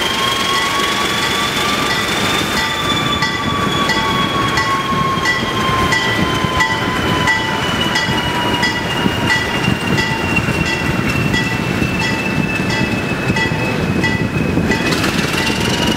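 Alco S2 diesel switcher No. 102 running with its train, a continuous rumble under a high whine that drifts slowly in pitch. From about three seconds in, its bell rings steadily, about one stroke every two-thirds of a second.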